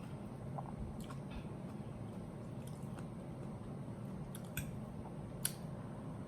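A person chewing food close to the microphone, with a few soft mouth clicks about a second in and again near the end.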